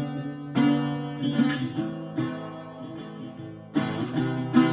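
Background music: a plucked-string instrumental, with strummed chords struck every second or so that ring and die away over steady low notes.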